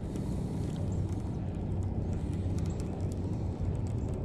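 Steady low rumble of wind on the microphone, with small waves lapping against a kayak hull.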